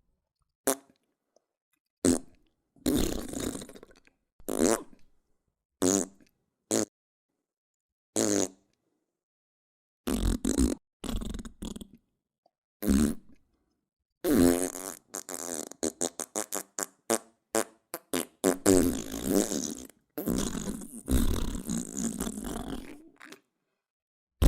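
Fart sound effects: a string of separate farts of varying length, divided by silences, with a quick run of short sputtering ones past the middle.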